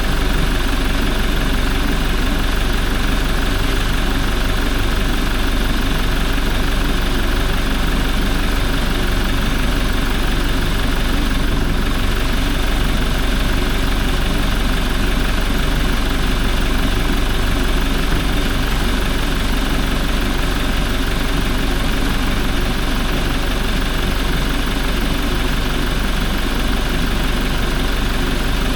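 Toyota 1GD-FTV 2.8-litre four-cylinder turbodiesel idling steadily.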